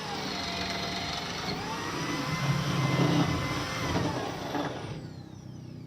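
Electric drill with a large auger bit boring a hole: the motor whines and takes on a heavier, louder rumble under load around the middle, then is released about five seconds in and winds down with a falling whine.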